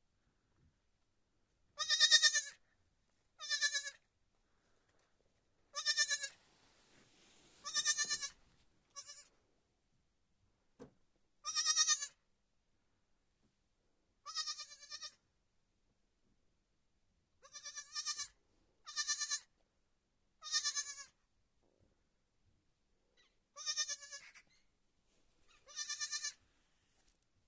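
Young lamb bleating repeatedly: about a dozen short, high, quavering bleats, one every second or two, with gaps of silence between.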